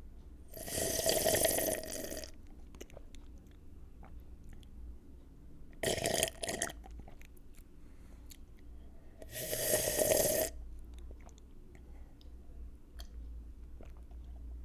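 A person slurping a drink: three loud, airy slurps, the first about a second and a half long, the second shorter, the third about a second. Small wet mouth clicks fall between them.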